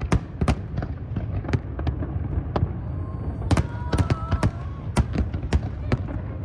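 Aerial fireworks display bursting: a rapid, irregular string of sharp bangs and crackles over a continuous low rumble of distant explosions.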